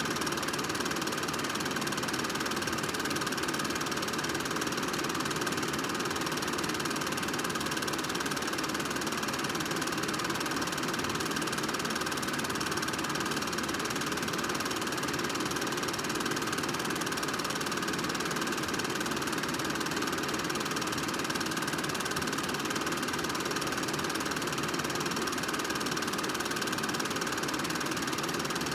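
Film projector running: a steady mechanical whir with fast clatter that never changes.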